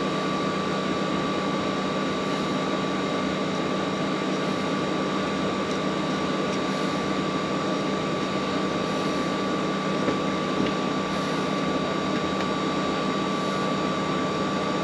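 Steady mechanical hum from a running machine: a low drone and a thin, high whine, both held at constant pitch, over an even hiss.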